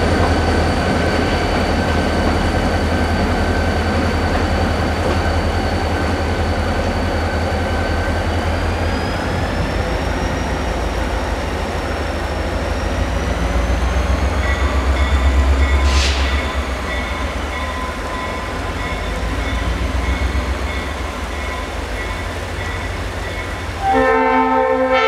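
Norfolk Southern diesel locomotives rumbling as they move away off a wooden trestle, with a high wheel squeal that wavers in pitch. A faint regular ringing starts about halfway through, and near the end a train horn sounds loudly as a multi-note chord.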